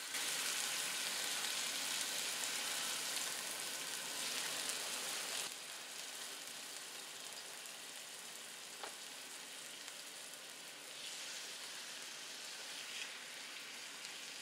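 Raw chicken breasts sizzling in hot oil in a skillet on medium heat: a steady frying hiss that drops quieter about five and a half seconds in.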